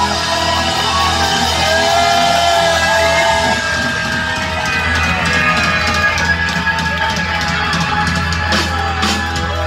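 Live rock band playing loudly through a small venue's PA, with the crowd's voices mixed in.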